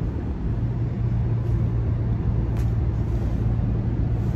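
Cabin noise of a moving car heard from the back seat: a steady low engine and road rumble with a constant low drone.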